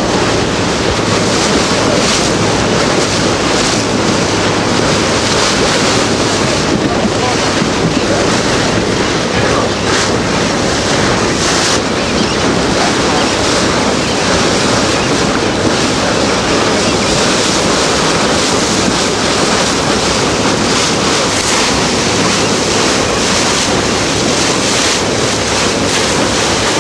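Steady wind noise on the microphone over the rush of sea water.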